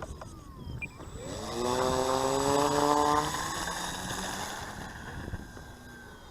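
Radio-controlled model airplane's motor and propeller buzzing in flight: the hum rises in pitch about a second in, holds steady for a couple of seconds, then fades away.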